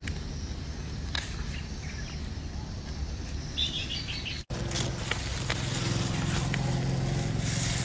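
Faint rustling and snapping in the grass as termite mushrooms are plucked by hand. A bird calls a quick run of high chirps about halfway through. A steady low hum runs underneath.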